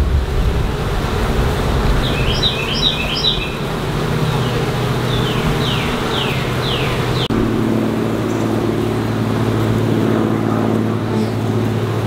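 Swarm of honey bees humming over an open hive, a steady drone. A bird calls in the first half, a few quick chirps and then several falling whistles.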